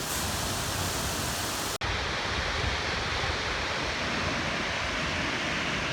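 Little Millstream Falls: a waterfall rushing steadily. The sound cuts out for an instant about two seconds in and comes back a little duller.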